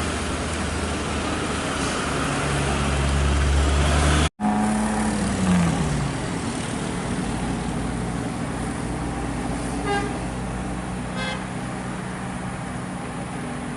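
Heavy vehicle engine running with a steady low drone, which cuts out for an instant about four seconds in. Two short horn toots come later.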